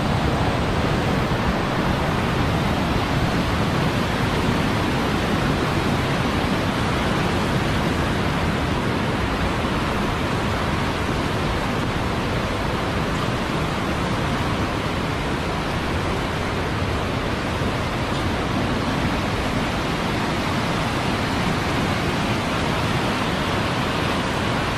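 Muddy floodwater of a river in spate rushing past in a steady, unbroken torrent.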